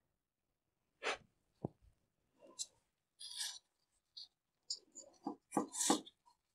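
Quiet, scattered rustles and scrapes of gloved hands arranging Vanda orchid roots in a slatted wooden basket, busiest about five to six seconds in.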